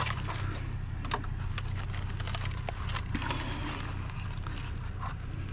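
Scattered light clicks and knocks of wire and scrap parts being handled and pulled free, over a steady low hum from an idling truck engine.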